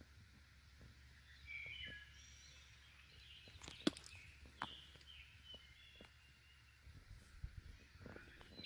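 Quiet outdoor ambience with faint, scattered bird chirps and a few sharp clicks near the middle.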